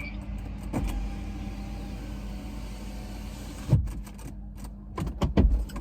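Car running, heard from inside the cabin as a steady low hum, with a few knocks: a louder one about two-thirds of the way in and the loudest cluster near the end.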